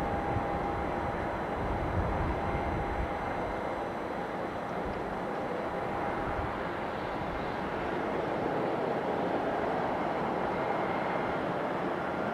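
Jet engines of a Boeing 747-400 freighter running, a steady distant rumble with a faint whine.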